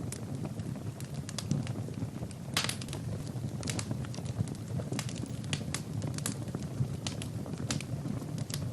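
Wood fire in a fireplace, logs burning with irregular sharp crackles and pops over a steady low rumble of flame, with a brief flurry of pops about two and a half seconds in.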